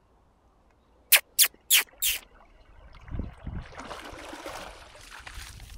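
German Shorthaired Pointer puppy wading and splashing through shallow water as she swims in to the bank, starting about three seconds in and going on unevenly with low sloshing thuds. Before that, about a second in, there are four short sharp sounds in quick succession.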